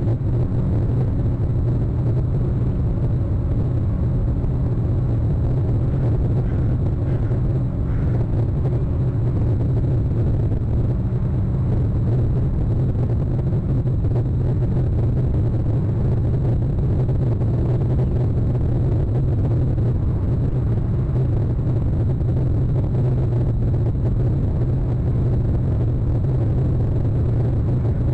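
Steady low rumble at an even level throughout, with three faint short higher sounds about six to eight seconds in.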